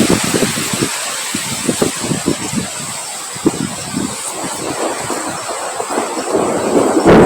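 Wind gusting against the microphone over a steady hiss of rain, in uneven low buffets. A stronger, louder gust surges in near the end.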